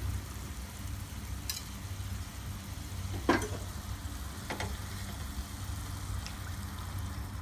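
Potato-tomato masala sizzling gently in a pan on a low flame, with three short sharp taps, the second loudest, as the eggs go in.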